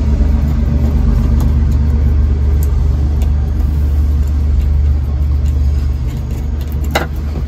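Steady low engine rumble with a hum. Over it come a few faint clicks and a sharper knock near the end as a screwdriver works a stainless hose clamp on the hose under the deck fitting.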